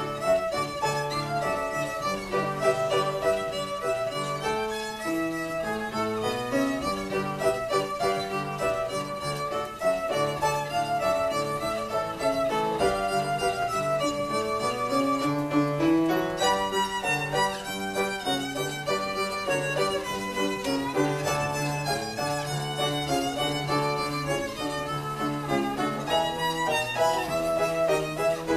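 Violin playing a melody with piano accompaniment, the piano carrying a bass line below the violin's range.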